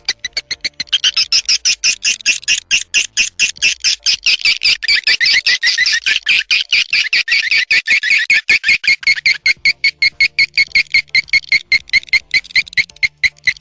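Swiftlet lure recording: a rapid, even train of high, sharp chirping calls of edible-nest swiftlets, played as a call to draw the birds into a swiftlet house.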